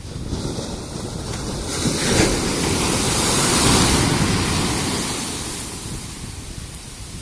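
Ocean surf: a wave breaking on the beach, swelling about two seconds in and washing back out over the next few seconds, with wind buffeting the microphone.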